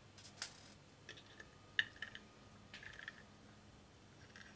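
Small Torx screwdriver working the tiny screws of a hard drive's platter clamp: scattered light metallic clicks and scrapes, the sharpest about two seconds in.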